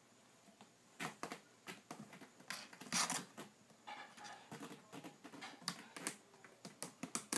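Kittens scuffling on a plastic litter box: irregular light clicks and scratches of claws and paws on the plastic and the litter mat, the loudest about three seconds in.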